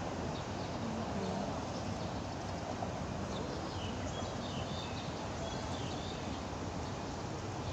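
Steady outdoor background noise with a few short, high chirps in the middle.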